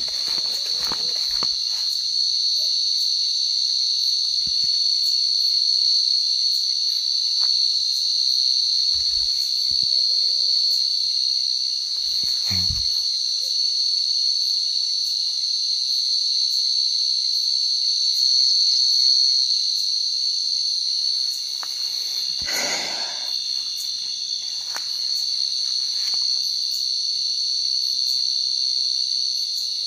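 A steady, high-pitched chorus of night insects, such as crickets, trilling without a break. A low thump sounds around the middle, and a brief rustling noise about three-quarters through.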